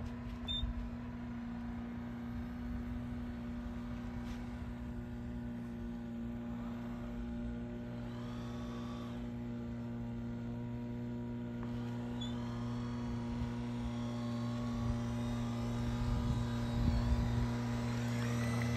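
A steady low hum, getting a little louder near the end.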